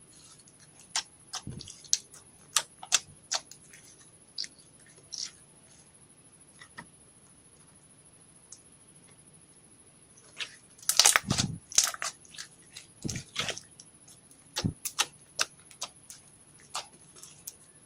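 Slime being squished and worked by hand: irregular sticky clicks and pops, with a quick flurry of crackling about eleven seconds in and quiet gaps between. A faint steady high whine sits underneath.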